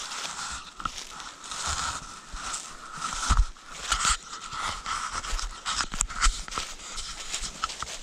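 Footsteps crunching and rustling through a deep layer of dry fallen leaves at a steady walking pace, each step a crackling crunch with a soft thud.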